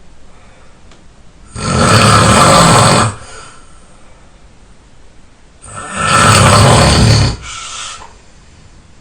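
A person snoring on a couch. Two loud snores come about four seconds apart, each about a second and a half long. The second snore trails off into a briefer, quieter sound.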